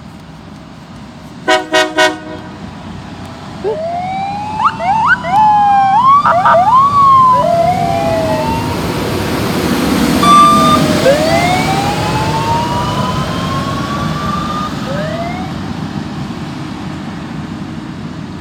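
LORAM rail grinder sounding three short horn blasts, a horn the railfan takes for a Nathan K3LA, then its siren: a run of quick rising and falling sweeps that settles into slower rising wails as the rail grinder rumbles past. The siren is loud enough to pass for a house alarm.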